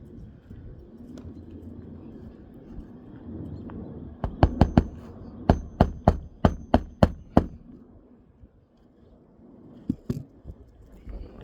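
Hammer nailing down a replacement asphalt shingle: a quick run of about eleven sharp strikes, four then seven, some with a faint metallic ring, and two lighter knocks near the end.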